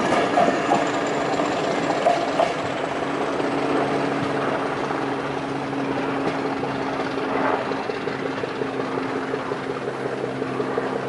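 Class 50 diesel locomotive with its English Electric 16-cylinder engine drawing its train away, a steady engine drone slowly fading. A few clacks from coach wheels over rail joints come in the first couple of seconds.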